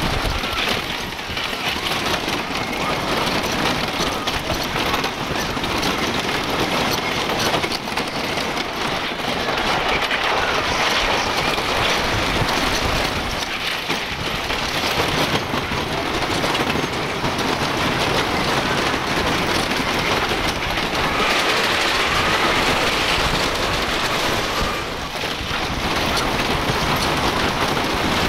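Flyer Comet wooden roller coaster train clattering and rattling over its track at speed, a loud steady din heard from on board.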